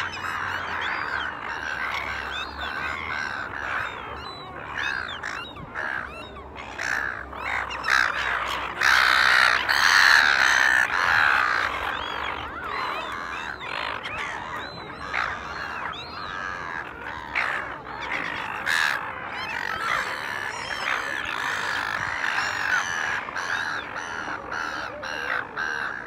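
Many silver gulls calling at once, their calls overlapping without a break, loudest about nine to eleven seconds in.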